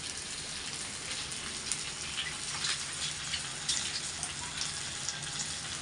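Masala-coated small fish frying in oil in a pan: a steady sizzle dotted with small crackles and pops.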